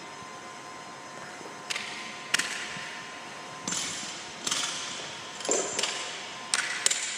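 Sharp metallic clanks and knocks of barbell weight plates and collars being handled on the bar's sleeve, about seven at uneven intervals starting a couple of seconds in.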